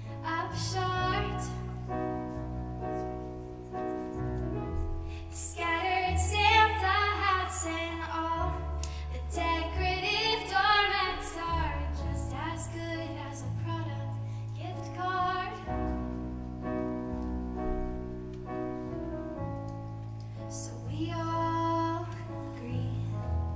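A young woman singing with a wavering, vibrato-laden voice while accompanying herself on a Yamaha digital keyboard with held piano chords. The voice is loudest in a held passage about six to eleven seconds in.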